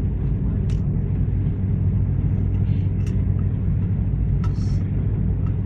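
Airliner cabin noise while the jet rolls along the ground after landing: a steady low rumble of the engines and wheels with a constant hum underneath, and a few faint clicks.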